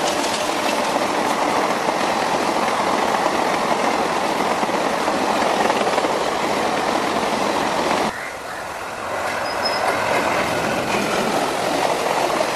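Indian Railways passenger coaches passing at speed on the nearby track: a loud, steady rumble of wheels on rail with some clatter and squeal. About eight seconds in, the sound cuts abruptly to a quieter train sound that grows louder again toward the end.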